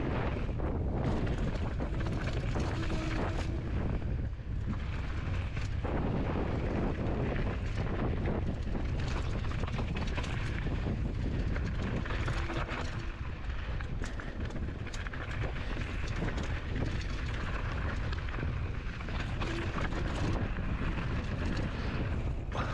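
Wind buffeting a GoPro microphone during a fast mountain-bike descent, over the steady rumble of a Santa Cruz Bronson's tyres rolling on loose dirt and rock, with scattered clicks and knocks from the bike rattling over rough ground.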